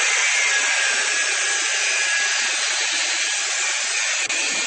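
A power tool running steadily at full speed, a loud hissing whir with a faint steady whine, during work on a BMX bike's chain.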